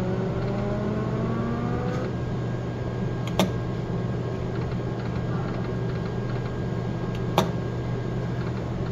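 Buffalo video slot machine: a rising electronic tone from the machine stops about two seconds in, then the spin button clicks sharply twice, about four seconds apart, each click starting a new $4 spin. A steady low hum runs underneath.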